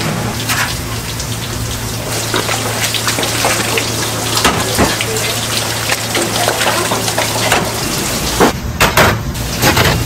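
A large pot of noodle water at a boil, with water splashing as noodles are scooped out with a strainer basket. Stainless steel bowls clink now and then, several times near the end.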